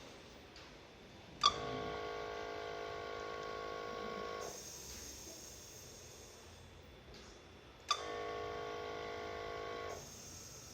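Mechanical ventilator cycling through two breaths. Each opens with a sharp click and is followed by a steady humming tone lasting two to three seconds, which then cuts off.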